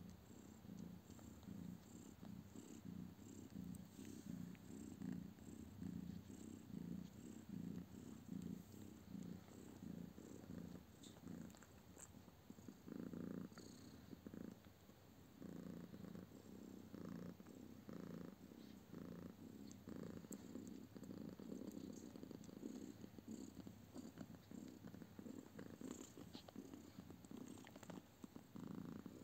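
Nursing mother cat purring softly and steadily, in an even pulsing rhythm that dips briefly about halfway through.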